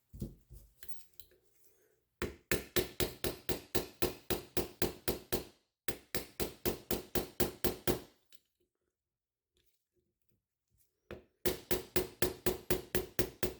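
Hammer tapping a pin punch to drive a pin out of a CZ P10F pistol frame: quick, even taps, about four a second, in three runs with short pauses between.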